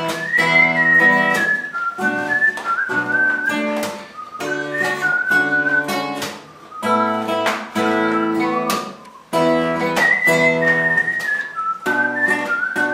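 Acoustic guitar strummed in chords while a man whistles a melody over it, the tune moving up and down in short phrases with brief pauses between them.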